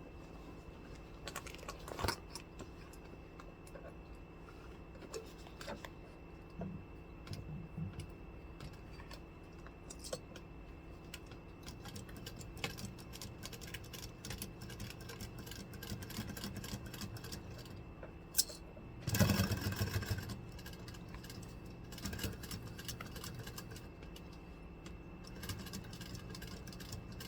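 Leather sewing machine stitching a bag seam in runs, its motor humming steadily while it sews. Light clicks and metallic rattles of the leather and binder clips being handled come between the runs, with a louder rattle a little past the middle.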